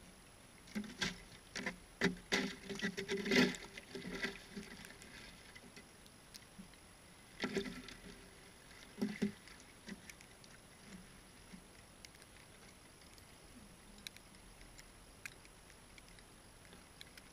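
Plastic snow shovel scraping and knocking against ice and slush in an ice hole as it is cleared out: a run of crunching scrapes in the first few seconds, then two shorter ones about halfway through.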